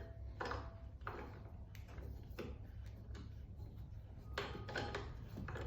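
Faint, scattered clicks and light metal knocks from handling the parts of a welding positioner, a couple with a short ringing tone, over a steady low hum.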